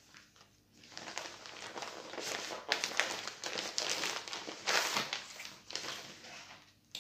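Packaging crinkling and rustling in irregular bursts as a cross-stitch kit is unwrapped and handled.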